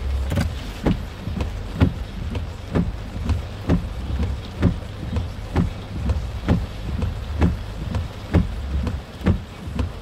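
Steady ticking about twice a second inside a car in the rain, over a low, even rumble.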